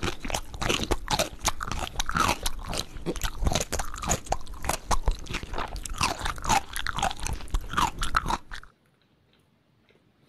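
A person chewing big mouthfuls of marble cake close to the microphone, with many quick mouth clicks and crunches. The sound cuts off abruptly a little past eight seconds in.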